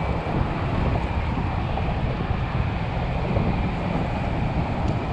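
Steady wind buffeting the microphone, with the wash of small waves on the water beneath it.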